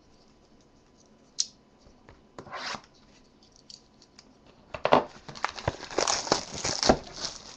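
Shrink-wrapped trading card box being unwrapped by hand: a short tap and a brief rustle, then about five seconds in a busy run of plastic crinkling and tearing as the wrapper comes off.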